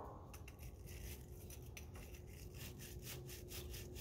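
Bristle brush scrubbing the threads of a propane tank valve in quick strokes, about four a second, to clean out threads that look wrong and won't take the regulator.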